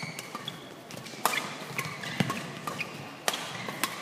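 Badminton rally: the shuttlecock struck back and forth by rackets in sharp cracks about every half second, with short squeaks in between.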